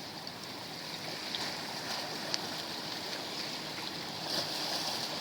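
Water running steadily, with a few faint small clicks.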